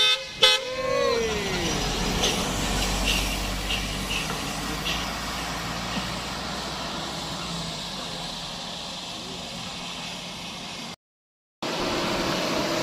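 A heavy vehicle passing on a road bend: a couple of loud sharp sounds right at the start, one trailing off in a pitched tone that falls over about a second, then steady engine and road noise that slowly fades away. The sound drops out for about half a second near the end.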